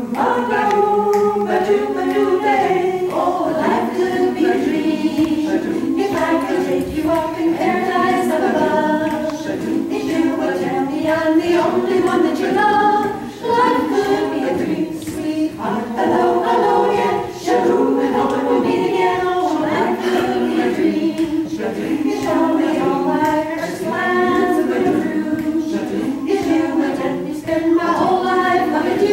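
A women's a cappella group singing a 1950s doo-wop medley in close harmony, several voices together without accompaniment.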